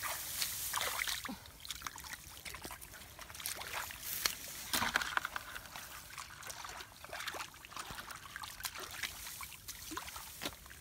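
Shallow muddy water sloshing and splashing in small irregular splashes as hands and a hoe work through the mud.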